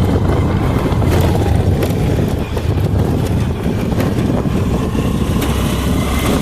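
A road vehicle running steadily, with a constant low rumble.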